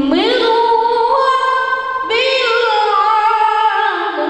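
A boy singing into a handheld microphone, holding long, ornamented notes. His voice leaps up in pitch right at the start, holds high, and drops back low near the end.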